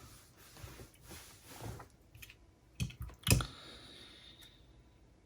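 Light handling noise with a few sharp clicks, the loudest about three seconds in, as small parts of a partly dismantled MiniDisc recorder are handled at a repair bench.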